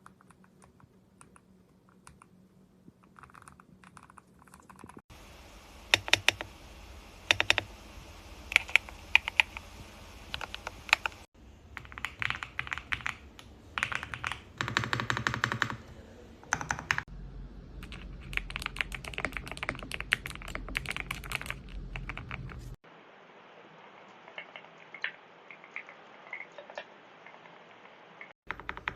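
Typing on a GMK67 mechanical keyboard: quick runs of sharp key clicks and clacks. The first few seconds are sparse and quieter, then the typing gets busier. The tone changes abruptly every few seconds, as if separate recordings were cut together.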